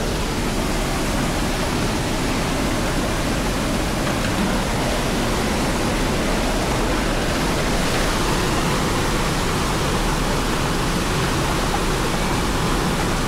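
Steady, loud rush of white water pouring down a waterfall.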